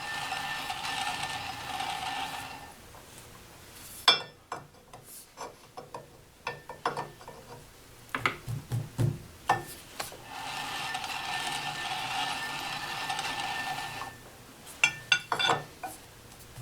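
Work on a metal lathe while truing a part in the four-jaw chuck. There are two stretches of steady mechanical whirring lasting a few seconds each, and between them a series of sharp knocks and clicks, the loudest about four seconds in, as the part is tapped toward true.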